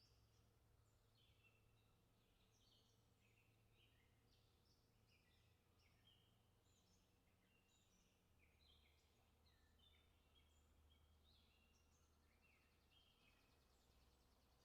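Faint chorus of several birds chirping and calling, many short overlapping notes throughout, with a buzzy trill near the end, over a low steady hum.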